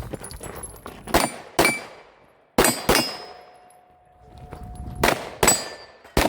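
Pistol shots fired in quick pairs, three pairs and then one more shot near the end, with steel targets ringing after the hits; one ring hangs on for about two seconds.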